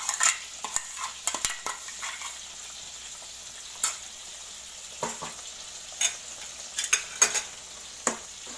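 Butter chicken gravy simmering with a steady sizzle in an enamel pot. Scattered clicks and knocks of a spoon against the pot and container come more often in the last few seconds as the gravy is stirred.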